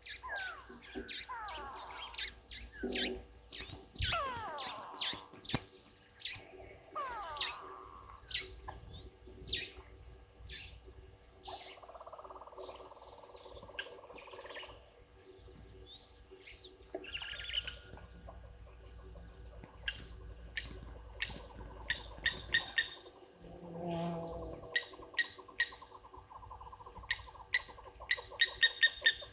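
African bush ambience: a steady high insect drone, with many bird calls over it. Several calls fall in pitch in the first few seconds, and a run of sharp, rapidly repeated notes comes near the end.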